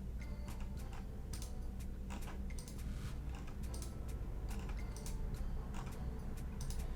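Irregular clicking of a computer mouse and keyboard, several clicks a second, over a low steady hum.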